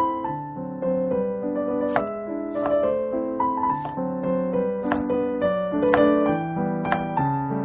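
Background piano music: a melody of struck notes over held, changing chords.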